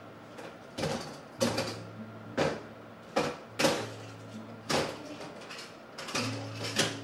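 Plastic toy cars and toys being dropped and put into hard plastic storage bins: a run of clattering knocks, about nine of them at uneven intervals.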